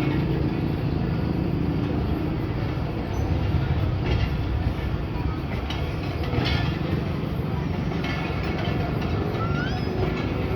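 Passenger train pulling out of the station: a steady low rumble of the diesel locomotive and its coaches getting under way, with a brief rising squeak near the end.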